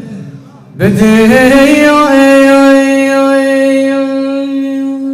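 A man's solo singing voice in an Iraqi folk song: a short breath, then about a second in he slides up into one long steady held note.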